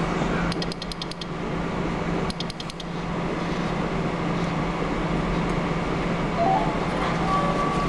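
Two quick runs of faint clicks, several clicks each, about half a second in and again between two and three seconds in: the Hydreon RG-11 rain sensor's output relay pulsing as water drops land on its lens, set to give multiple pulses per larger drop. A steady hum runs underneath.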